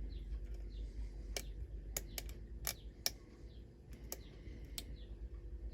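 Lock picking on a pin-tumbler lock fitted with security pins: about seven sharp, irregular clicks as the pick and tension wrench work the pins. Faint bird chirps behind.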